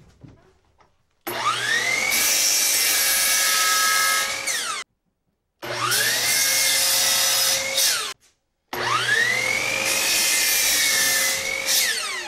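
Hitachi compound miter saw crosscutting a seasoned 2x4, three times. Each time the motor spins up with a rising whine and then runs steadily through the wood; the last cut winds down with a falling whine near the end.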